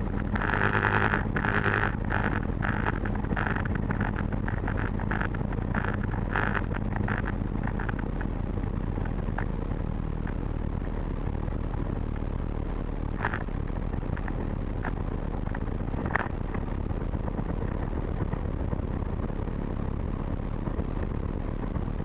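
Calidus gyroplane's engine idling, throttled back for a landing: a steady low drone. Rushing air noise comes in gusts over it for the first several seconds, and a few sharp clicks follow later.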